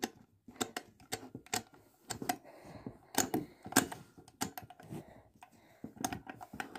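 Passcode buttons on a small house-shaped coin safe being pressed one after another: a run of sharp clicks at uneven spacing, with no beeps.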